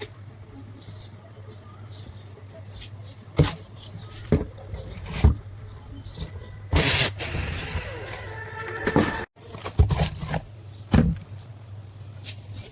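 A series of separate knocks and clicks over a steady low hum, with a louder rushing, scraping noise in the middle that lasts about two seconds.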